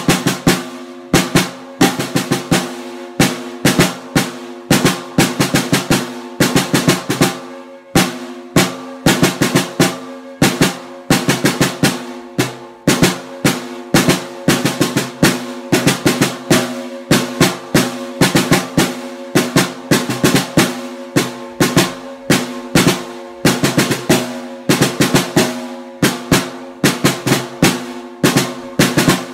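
Unmuffled snare drum struck with wooden drumsticks by a beginner: an uneven run of strokes and short rolls, several hits a second, with the drum ringing between hits.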